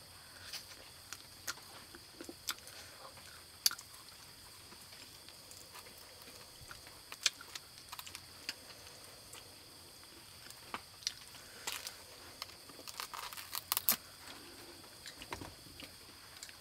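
Scattered sharp clicks and small crackles of a baby monkey chewing and handling pieces of grilled meat pulled from a skewer, busiest near the end, over a faint steady high hiss.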